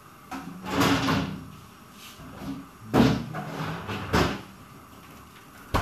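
Kitchen handling sounds: a scraping clatter about half a second in, then two sharp knocks around three and four seconds in and a short click near the end, like cookware and cupboard doors being moved about.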